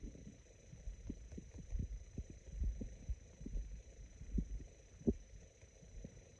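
Human stomach gurgling: sparse, irregular low pops and short rumbles, with one louder gurgle about five seconds in.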